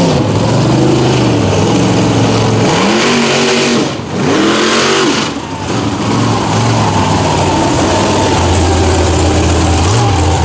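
Big lifted mud-truck engines revving hard, the pitch sweeping up and down several times, then holding a steadier high-revving run as a truck drives through the mud on oversized tires.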